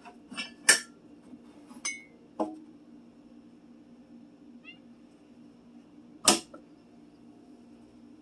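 Mugs and kitchenware being set down on a cabinet shelf: a few sharp clinks and knocks in the first two and a half seconds and one more about six seconds in, over a low steady hum. A brief faint squeak comes about halfway through.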